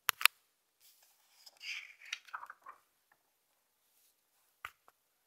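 Glossy picture-book page being turned by hand: two sharp taps as the page is gripped, a soft paper rustle as it slides over, and a single click near the end.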